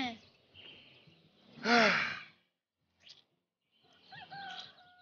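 A person lets out a long, loud, audible sigh whose pitch rises and then falls. Near the end a softer, short, high held vocal note follows.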